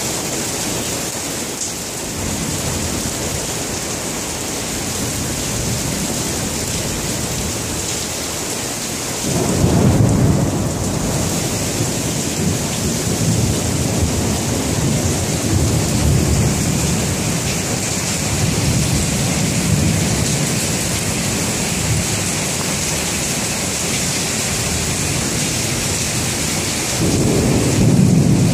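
Heavy rain falling steadily, with thunder: a loud rumble breaks in about a third of the way through and rolls on in swells for several seconds, and another rumble rises near the end.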